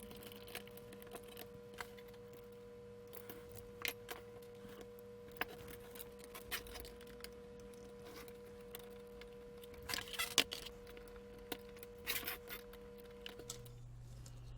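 Scattered small clicks, taps and scrapes of plastic and metal parts being handled and pried as a pocket calculator is taken apart, with a few sharper clicks about four, ten and twelve seconds in, over a faint steady hum.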